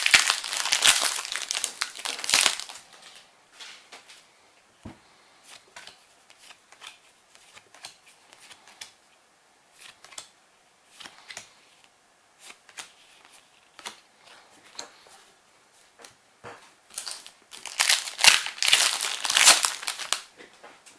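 Foil booster-pack wrappers crinkling and tearing open, loud for the first two and a half seconds and again for about two seconds near the end. In between come faint scattered clicks and rustles of trading cards being handled.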